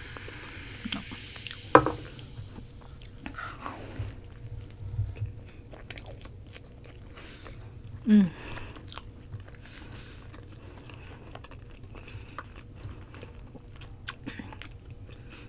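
Close-miked eating: chewing and biting with small wet clicks and crunches, with a short falling low sound about eight seconds in. A high fizzing hiss fades out over the first two seconds, the drink settling in the glass just after pouring.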